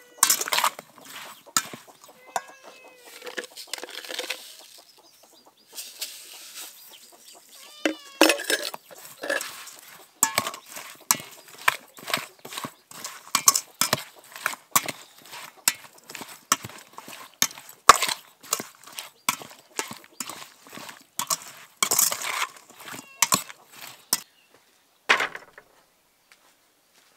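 Chickens calling a few times in the first several seconds, over a busy run of sharp knocks and clatter that stops near the end.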